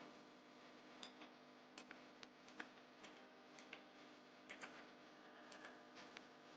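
Faint, unevenly spaced keystrokes on a Tsunami MK68 mechanical keyboard with Outemu Blue clicky switches, about a dozen sharp clicks over a low steady hum.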